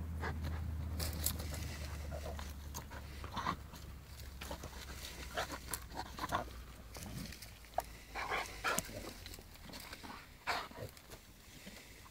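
A dog rolling and wriggling on its back in dry grass, twigs and leaves: irregular rustling and crackling of the dry ground cover under its body, in short bursts.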